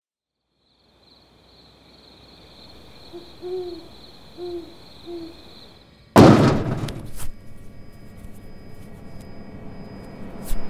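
Night ambience with a steady high trill, over which an owl hoots three times. About six seconds in, a sudden loud boom cuts in and dies away, leaving a steady low hum with faint knocks.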